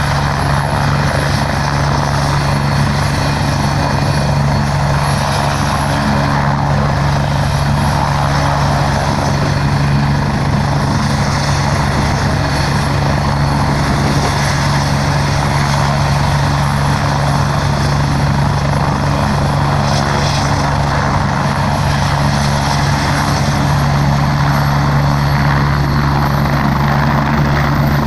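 Medical helicopter's turbine and rotor running steadily close by, with a thin high turbine whine that creeps up in pitch near the end.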